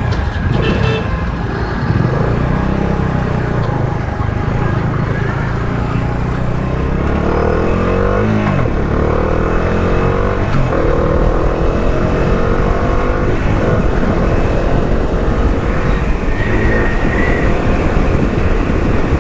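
Bajaj Dominar 400's single-cylinder engine idling, then pulling away and accelerating. Its pitch rises and drops back several times as it shifts up through the gears.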